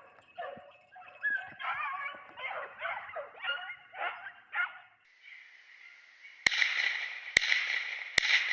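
A pack of beagles baying on a rabbit chase for about five seconds. After a short lull, three gunshots ring out less than a second apart over a steady hiss.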